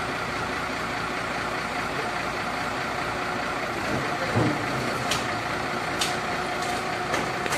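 Forklift engine running steadily at idle, with a brief low sound about four seconds in and a few sharp clicks later on.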